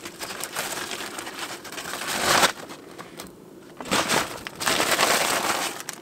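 A knife sawing through the crusty loaf of artisan sourdough bread, a crunchy, crackling noise in strokes that build to the loudest about two seconds in, pause, and then go on again.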